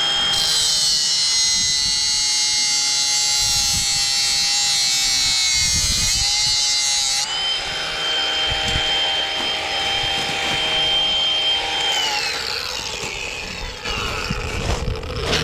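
Ryobi cordless angle grinder with a cut-off wheel cutting through steel rebar: a high motor whine with a loud grinding hiss, the whine dipping under load. About seven seconds in the hiss stops and the grinder runs free, then spins down near the end.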